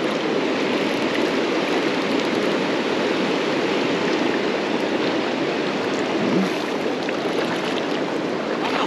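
Fast, shallow river water running over rocks: a steady rush of flowing water.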